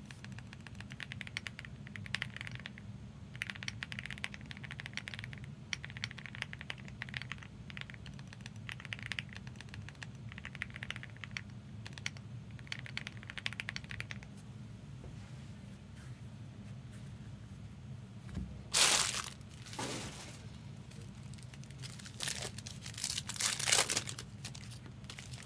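Bursts of keyboard typing, then a foil trading-card pack wrapper crinkling and being torn open in several loud strokes near the end, over a steady low hum.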